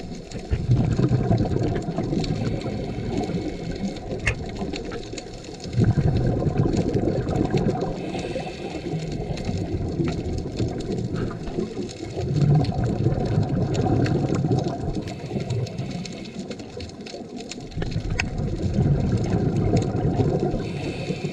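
Scuba divers' exhaled regulator bubbles heard underwater, a bubbling surge about every six seconds over a steady muffled underwater background, with scattered faint clicks.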